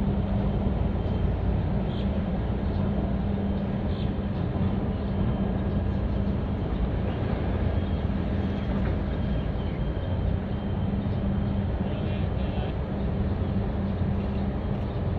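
A steady low engine hum with a constant rumble underneath, unchanging throughout, with a few faint ticks.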